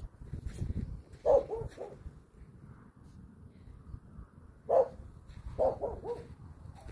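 Mini whoodle puppy barking in short, high yaps, in three bursts: a few about a second in, one near five seconds, and a few more just after.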